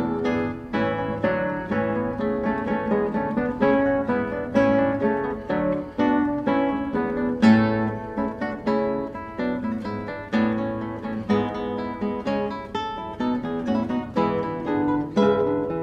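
Background music on acoustic guitar: a steady run of plucked notes, several a second.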